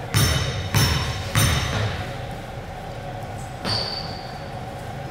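Basketball dribbled on a gym court: three bounces in quick succession, about 0.6 s apart, then after a pause a single thud with a brief high ring.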